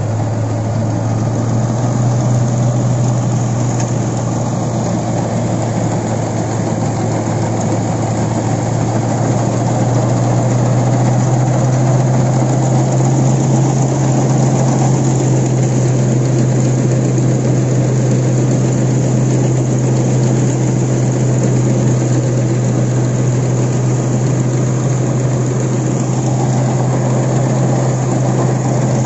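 Sonalika DI 750 III RX tractor's diesel engine running steadily while it drives a straw reaper at work, the reaper's cutting and threshing mechanism adding a dense mechanical noise over the engine.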